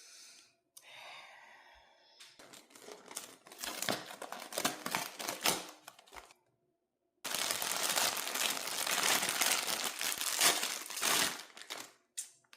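Crinkly blind-box packaging being torn open and handled: two long stretches of dense crackling and tearing, broken by a short silent gap.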